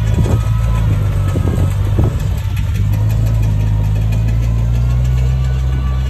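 Komatsu bulldozer's diesel engine running steadily under a deep, even drone, with a few short clanks in the first two seconds.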